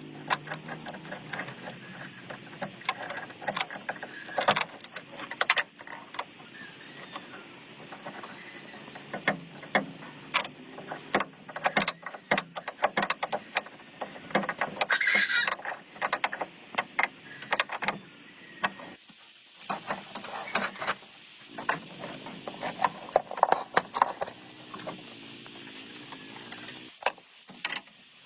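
Irregular metallic clicks, clinks and knocks of hand tools working on metal parts, with a brief high squeal about fifteen seconds in.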